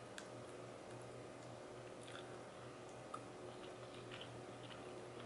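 Faint, scattered clicks and crackles of crab shell as it is picked apart by hand to get the meat out of a joint, over a low steady hum.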